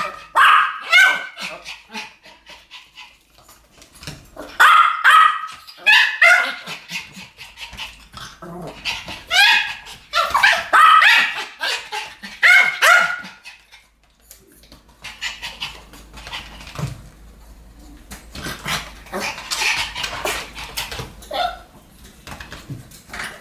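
Two Pomeranians barking together in rapid volleys of sharp barks, in bouts broken by short lulls.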